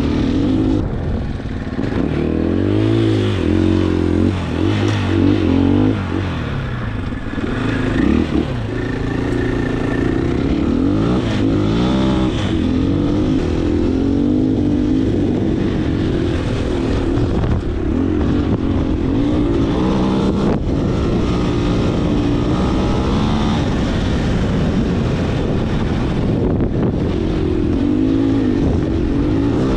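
Husqvarna dual-sport dirt bike engine running under load up a rocky desert climb, its pitch rising and falling again and again with the throttle.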